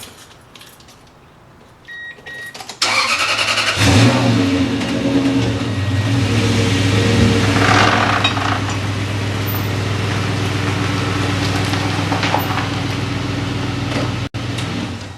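Truck engine cranking and starting about three seconds in, briefly revving, then running steadily as the truck is driven forward. A short electronic beep sounds just before it starts.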